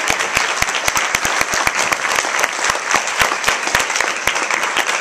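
Audience applauding: a steady clatter of many hands clapping, with some sharp claps close by.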